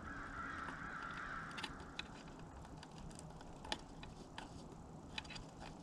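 Faint, scattered clicks and taps of hands handling wires and wire nuts at a corn feeder's timer box, with a faint hiss in the first two seconds.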